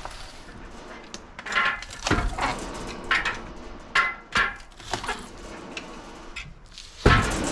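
Irregular knocks and clatter of wood, about half a dozen over a few seconds, over a quieter steady background. Near the end, the louder steady running of the sawmill starts up again.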